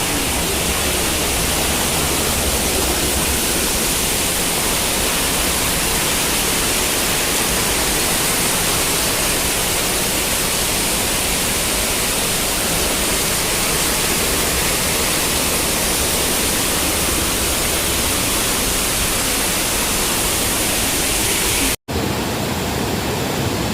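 Steady, loud rushing of floodwater, an even wash of noise with no rhythm or pitch. It cuts out for a split second near the end, then goes on.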